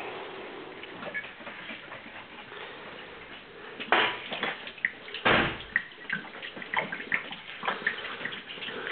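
Empty glass wine bottles clinking and knocking as they are rinsed at a kitchen sink, with some water. The knocks and clinks start about four seconds in, the loudest just after five.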